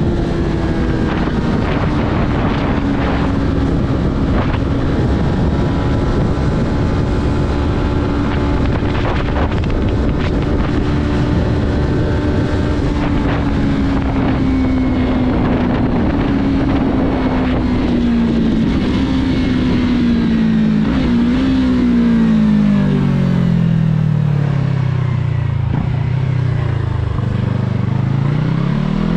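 Yamaha R3's 321 cc parallel-twin engine, on its stock exhaust, pulling at steady high revs under wind rush. From about two-thirds through the revs fall away as the bike slows, then rise again near the end as it accelerates.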